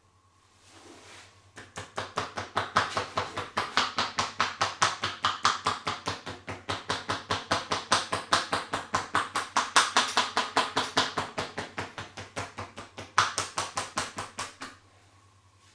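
A masseur's hands slapping rapidly and evenly on a person's body in percussive massage, about five or six strikes a second. The strikes start about a second and a half in and stop shortly before the end.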